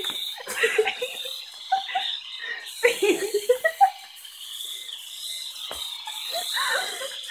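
Corded electric epilator running with a steady high whir, with short irregular vocal sounds breaking over it.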